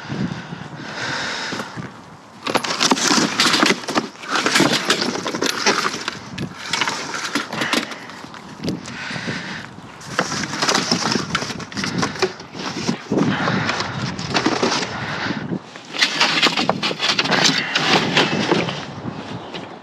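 Junk being rummaged through and pulled out of a dumpster: repeated clattering, knocking and scraping of hard objects in loud bursts that come and go.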